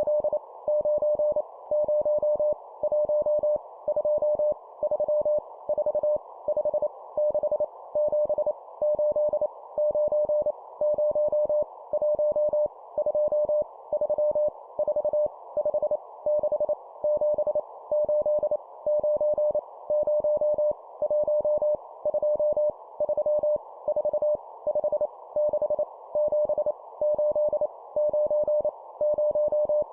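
Morse code (CW) sent at 25 words per minute: a single steady mid-pitched tone keyed rapidly on and off, spelling out groups of numbers, over a constant hiss.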